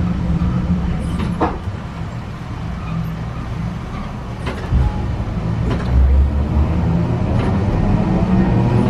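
Sapporo City Tram type 240 streetcar heard from inside the car while running: a low rumble from the running gear with a few sharp clicks. From about six seconds in, a motor whine rises slowly in pitch as the tram picks up speed.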